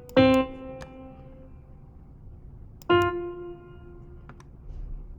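Two single software piano notes, sounded as each new note is placed in a piano roll: one just after the start and a higher one about three seconds in, each fading out over about a second. Faint clicks come between them.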